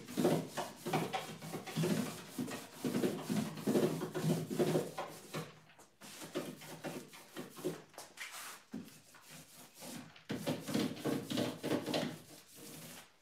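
Repeated rubbing strokes of paint being applied to a wooden cabinet, in two runs, with a sparser stretch from about five to ten seconds in.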